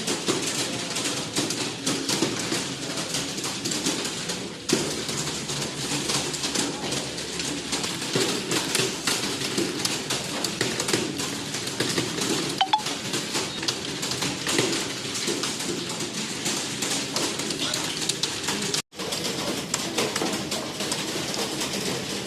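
Many computer keyboards clattering at once in a steady stream of keystrokes, a roomful of typists racing through a speed typing test, with pigeons cooing underneath. The sound drops out for an instant about three-quarters of the way through.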